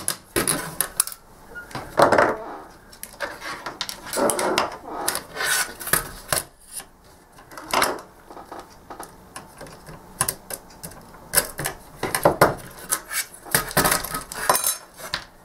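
Irregular clinks, knocks and scrapes of pliers and a ZX Spectrum circuit board with its metal heatsink plate being handled and set down on a workbench mat, as the heatsink is taken off the board. The loudest knocks come about 2 s in and again near the end.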